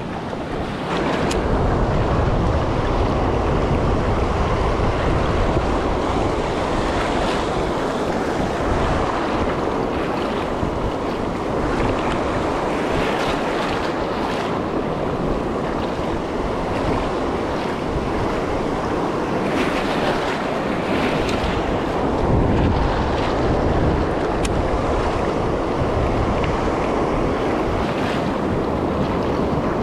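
Ocean surf breaking and washing in the shallows, with wind rumbling on the microphone.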